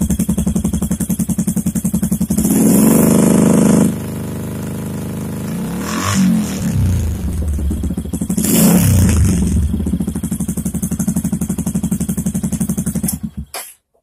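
Motorcycle engine running through a silencer fitted with a fake turbo whistler, idling with a steady beat and revved up twice. The whistle is barely audible. The engine sound cuts off about half a second before the end.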